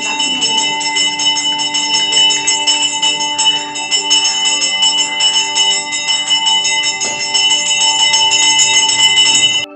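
Temple bells ringing rapidly and without pause during a puja, a dense clanging with many overlapping high ringing tones. It cuts off suddenly near the end.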